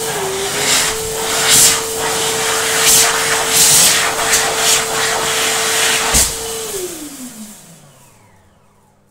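Fast electric hand dryer blowing, a steady motor whine under a rush of air that swells and dips as hands move in the airflow. About six and a half seconds in it cuts out, and the motor winds down with a falling whine that fades away.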